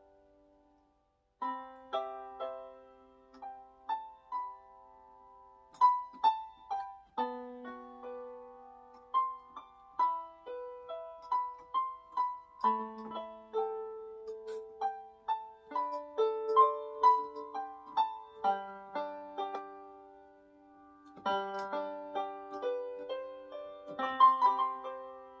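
Small electronic keyboard played with a piano sound: a slow melody of single struck notes over chords, starting a little over a second in.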